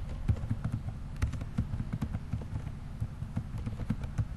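Computer keyboard keys being typed on, a quick, uneven run of clicks as a word is entered, over a steady low hum.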